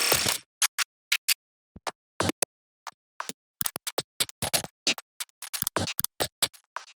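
Digital glitch transition sound effects: an irregular string of sharp clicks and short crackling stutters, each cut off abruptly into dead silence. A longer burst comes at the start, and the stutters come faster in the second half.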